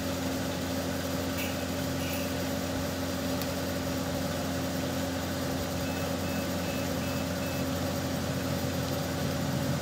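Steady low mechanical hum with a few steady pitched tones in it, and a faint train of short high beeps about six seconds in.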